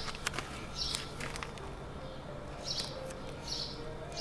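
A small bird chirping in short high chirps, about five times, with a few faint clicks from wires being handled.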